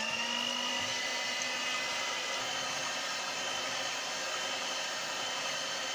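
Electric hand mixer running at a steady speed, its beaters whisking raw eggs in a stainless steel bowl: a steady motor whine over a whirring hiss.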